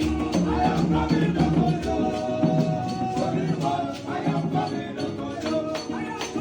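Live gospel worship music: a band playing with a steady percussion beat of tambourine and shaker strikes over a bass line and held melody notes.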